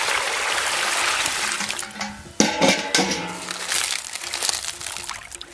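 A stream of water pouring into a plastic tub onto a stack of dried lotus leaves, stopping about two seconds in. Then a few sharp splashes and handling sounds as hands press the soaking leaves down into the water, fading toward the end.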